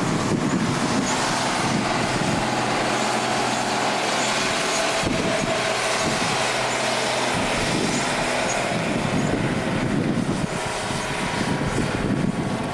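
Heavy goods truck's engine running steadily as the truck drives along the road.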